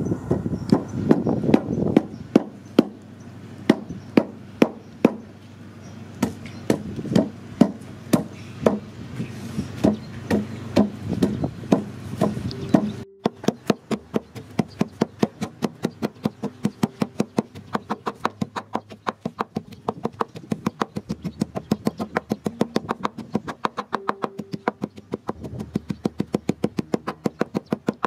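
Wooden pestle pounding garlic cloves in a wooden mortar: a steady run of dull knocks, about two a second at first, then quicker, about four a second, after a sudden break about halfway.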